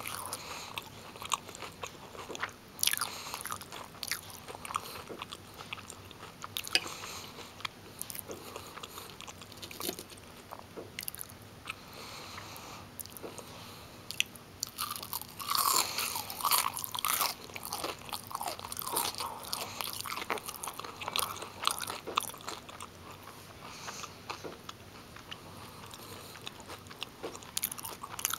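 Close-up crunching and chewing of crispy breaded fish sticks: repeated crackling bites, with a dense stretch of crunching about halfway through.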